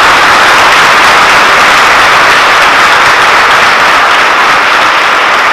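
A congregation applauding, many people clapping steadily and loudly.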